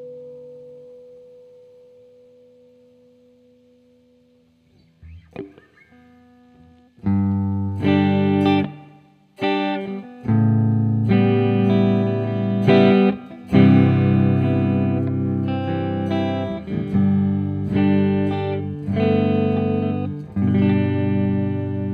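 Epiphone Dot electric guitar played clean through a Mooer ShimVerb reverb pedal. The reverb tail of an earlier chord dies away over the first few seconds, followed by a few soft string touches. About seven seconds in, strummed chords start and ring on in a long wash of reverb, with short breaks between them.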